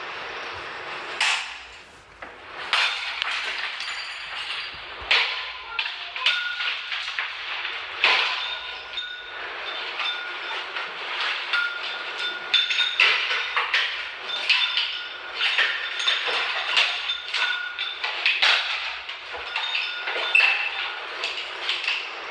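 A ceiling fan and its light kit being smashed: a long run of irregular hard hits and clattering, with glass clinking and breaking and brief metallic or glassy ringing after many of the strikes.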